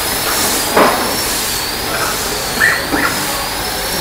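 Steady loud noise of workshop machinery with a thin high whine that slowly wavers in pitch, and a few short knocks about a second in and again near three seconds.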